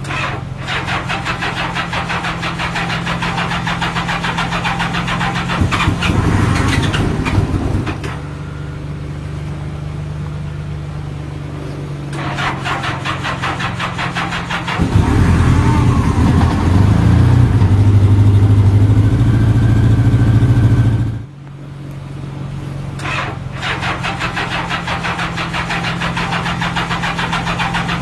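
Honda Gold Wing motorcycle engine being cranked over at length by its starter, catching and running unevenly, then shut off about three-quarters of the way through and cranked again. The owner suspects it is missing a cylinder on start-up, and the title blames a bad starter.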